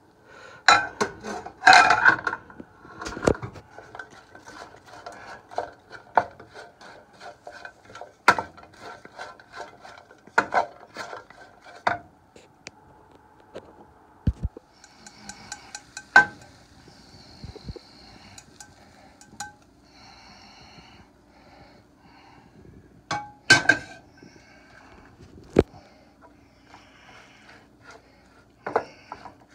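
Wooden spatula stirring and scraping diced food around a nonstick frying pan, with repeated knocks and clicks against the pan. It is loudest in the first few seconds and again briefly about 23 seconds in.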